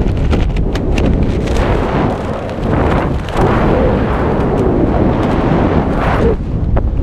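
Wind buffeting a camera microphone during a parachute descent under an open canopy, a loud rushing noise, with a few sharp clicks in the first couple of seconds.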